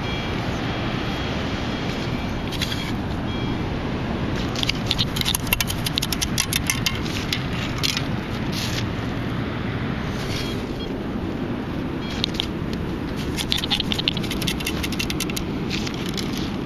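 Metal beach sand scoop being dug and shaken, sand and grit rattling and scraping through its perforated metal scoop and mesh basket in two spells of rapid clicking, over a steady rushing background.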